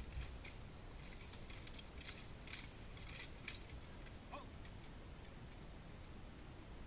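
Faint, sharp clanks of steel weapons and plate armour striking as two armoured fighters engage, with several quick strikes about two to three and a half seconds in.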